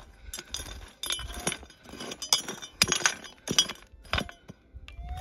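Digging in stony ground: about ten irregular sharp knocks and clinks of a tool and scoop against stones and gravel. A short metal-detector tone sounds near the end.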